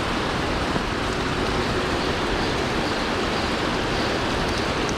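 Steady rushing of water pouring over a small river spillway.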